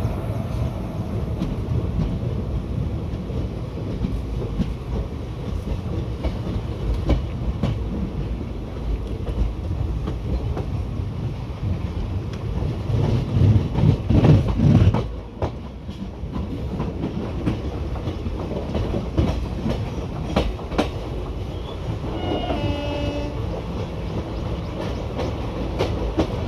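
Passenger train running at speed, heard from an open coach door: a steady rumble of wheels on rail with sharp clicks at the rail joints. It swells louder about halfway through, then drops off suddenly. A short locomotive horn sounds a few seconds before the end.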